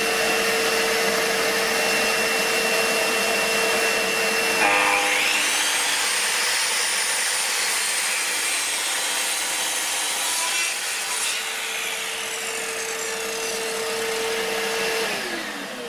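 Bosch GCM8SJL sliding mitre saw starting and running with a steady whine. From about five seconds in its blade cuts a 45-degree bevel through wood, a loud rasping cut, until about eleven seconds. Near the end the motor winds down, its whine falling in pitch.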